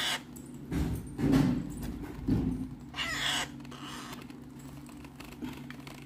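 Parrot chicks giving raspy begging calls while being hand-fed formula: about four short squawks in the first three and a half seconds, over a steady low hum.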